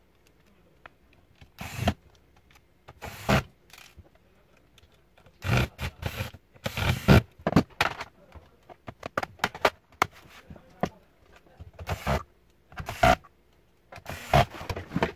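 Irregular handling noise: scrapes, clicks and knocks of the plastic bottom cover of an Acer Aspire E5-576 laptop being pressed down and snapped into place, with cables shifted on the bench.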